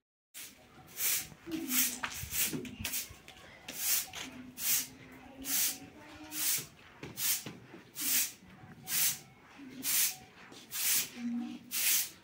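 Short straw hand broom sweeping a tiled floor, a dry swish with each stroke, a little more than one stroke a second.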